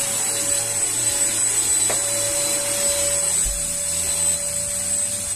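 Kurumi UV handheld mattress vacuum cleaner running steadily, its motor giving a high whine over a constant airflow hiss as it is worked over a mattress. A brief click comes about two seconds in.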